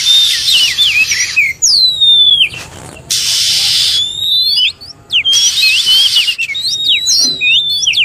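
Oriental magpie-robin (kacer) fighting calls: a rapid jumble of loud sweeping whistles, rising and falling notes, broken three times by harsh, hissy scolding bursts about a second long. This is a territorial challenge song played as a lure for wild magpie-robins.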